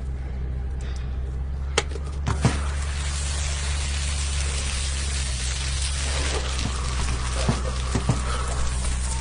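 Outdoor shower running, water spraying and splashing onto a person from about two seconds in, over a steady low hum, with a few sharp knocks.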